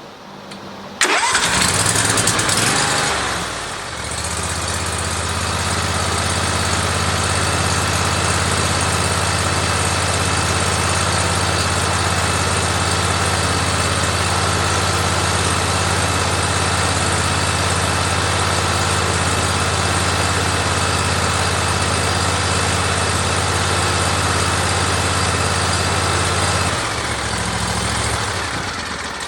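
Briggs & Stratton CXi2500 mower engine starting about a second in. It runs louder for a couple of seconds, then settles into a steady run and is shut off near the end, winding down. It is run briefly after an oil and filter change to fill the new oil filter.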